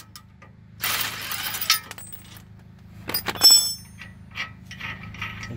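A DeWalt cordless impact driver runs for about a second, spinning the nut on a long bolt used to press a rusted-on brake rotor off its hub. About three seconds in comes a short bright clinking of metal as the lug nuts on the rotor's studs are handled.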